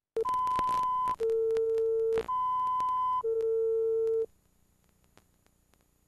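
Electronic tones on a broadcast tape's countdown leader. A higher beep and a lower beep alternate, each held about a second, high-low-high-low, with a few faint clicks. The tones stop about four seconds in.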